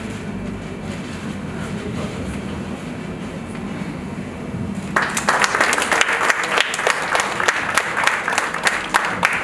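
A low steady room rumble, then about five seconds in an audience breaks into applause that keeps going.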